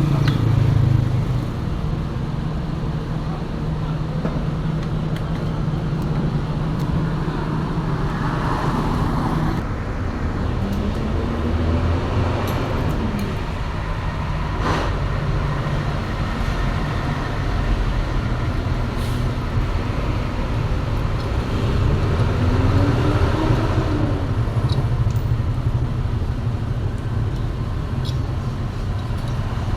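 Refrigeration compressor running with a steady hum, used as a vacuum pump to pull the air out of a refrigerator's pipes before it is recharged with refrigerant gas.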